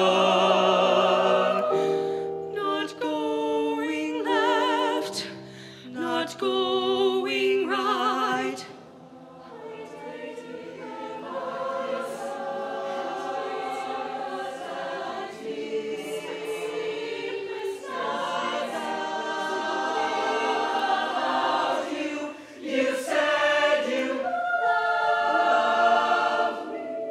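Mixed-voice show choir singing in full harmony, held chords with vibrato, backed by a live band. The sound drops away about eight seconds in and then builds back up.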